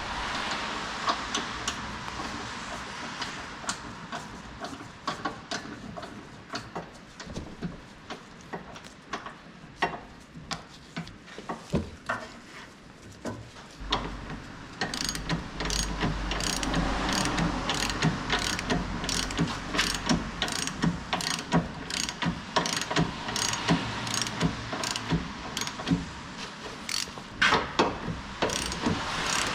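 Hand ratchet wrench clicking as a socket is worked on a bolt, in irregular strokes at first, then a steady run of about two strokes a second. A low hum sounds for a few seconds midway.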